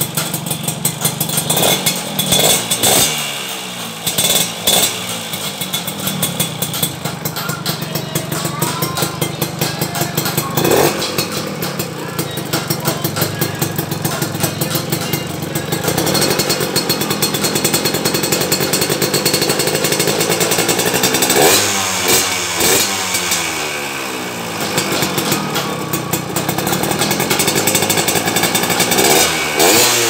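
Yamaha RS100's two-stroke single-cylinder engine running through an aftermarket expansion-chamber exhaust, idling and revved in repeated quick throttle blips that each fall back to idle. It is held at higher revs for a few seconds past the middle.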